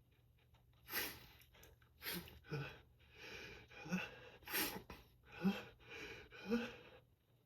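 A person sneezing hard several times in quick succession, about seven sharp bursts with gasping in-breaths between them.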